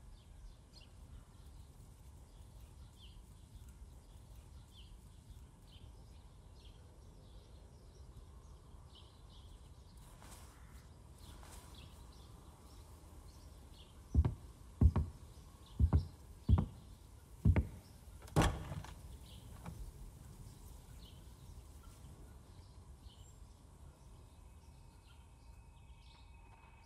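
Six loud, sharp impacts in quick succession over about four seconds, the last the brightest, set against faint outdoor ambience with small bird chirps.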